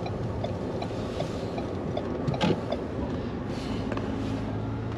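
Car driving, with steady road and engine noise heard from inside the cabin. Faint regular ticking runs under it, and there is a single knock about two and a half seconds in.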